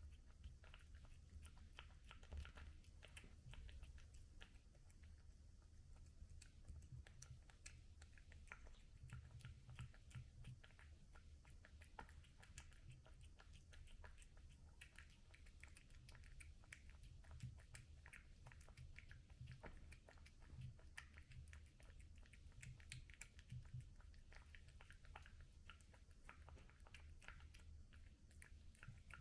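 Cat chewing its food, a faint, continuous run of small irregular clicks and bites.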